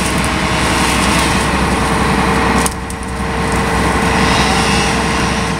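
An engine running steadily. Its level drops suddenly about halfway through, then builds back up.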